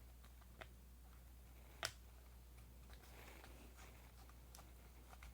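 Near silence with a few faint clicks from hands handling a pistol frame while pressing adhesive grip tape onto it. The sharpest tick comes just before two seconds in.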